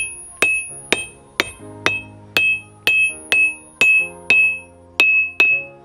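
Steel hammer tapping a steel anvil face in a ring test, about eleven strikes at roughly two a second. Each strike gives a short, high ring that dies away quickly, because the anvil is chained down to a wooden stump to damp it.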